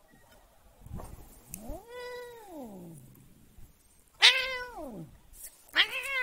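Long-haired black-and-white cat meowing three times in protest at being pestered. A long meow rises and falls about two seconds in, then two louder meows start high and drop, the last one near the end.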